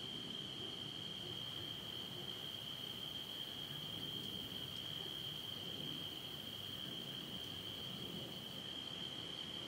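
Crickets singing: one steady, continuous high trill.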